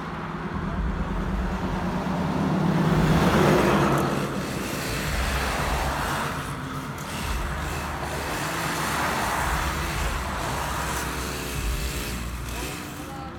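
Road traffic: vehicles passing one after another, each swelling and fading, over a steady low engine hum.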